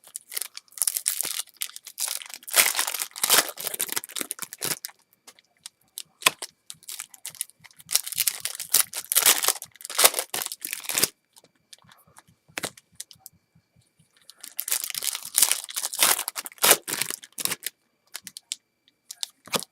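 Foil baseball-card pack wrappers being torn open and crinkled, with cards rustling as they are handled, in three bouts with short pauses between.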